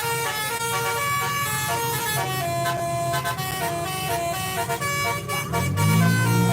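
Bus telolet horn, a multi-tone musical air horn, playing a run of short held notes that step up and down like a tune. A deeper, louder horn tone comes in near the end.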